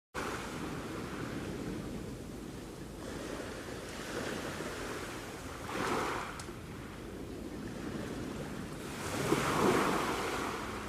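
Sea waves washing onto the shore in a steady rush, with one wave breaking more loudly about six seconds in and a bigger one near the end.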